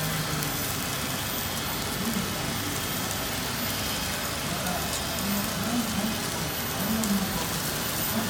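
Takoyaki batter sizzling steadily on a hot takoyaki griddle, with light clicks of metal picks turning the balls, over background voices.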